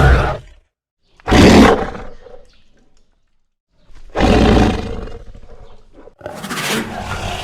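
Loud animal-like roars, one after another. One is dying away in the first half second, then three more break out about a second, four seconds and six seconds in. Each hits hard and trails off over a second or two.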